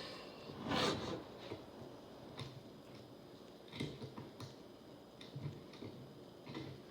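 Light, irregular clicks and taps from an analog clock being handled while its time is set, with a louder scraping rustle about a second in.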